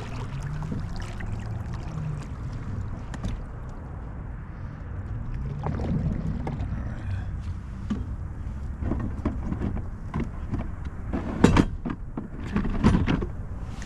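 Handling noise aboard a fishing kayak: a steady low wind rumble on the microphone, with scattered knocks and clatters of gear against the hull. The knocks are loudest in two clusters, about eleven and a half seconds in and again near thirteen seconds.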